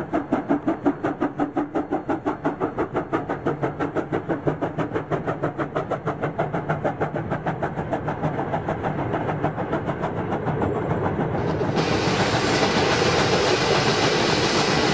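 Steam locomotive running with a quick, even exhaust beat of about six chuffs a second. About 12 s in, the sound cuts abruptly to a steadier, denser rolling noise of train wheels on the rails.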